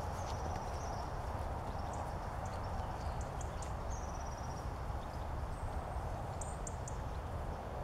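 Footsteps of a hiker walking a woodland path, over a steady background hiss, with small birds calling in short high trills a few times.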